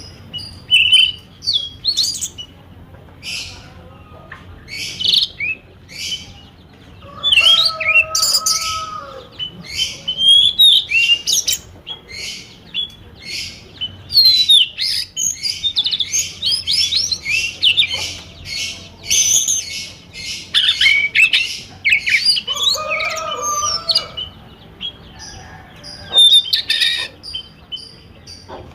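Small birds chirping in quick, overlapping high calls, with a lower call twice, about a third of the way in and again near the end.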